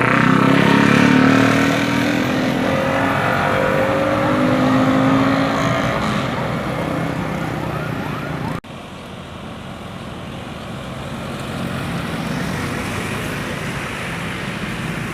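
A bus driving past, its engine drone sliding down in pitch as it fades. About halfway through, the sound cuts off abruptly and quieter road traffic noise takes over, slowly growing louder.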